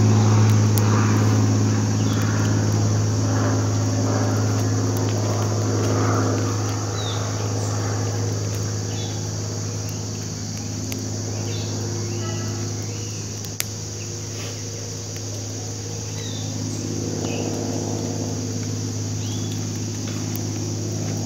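A steady low engine drone, easing off somewhat in the middle and swelling again toward the end. Short bird chirps come through over it, with a steady high insect hiss and a single sharp click partway through.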